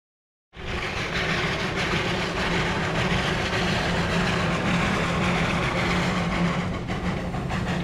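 Steam locomotive of the Achensee rack railway working across a level crossing with its carriages: a steady, loud running sound of steam and rumbling gear that starts abruptly about half a second in.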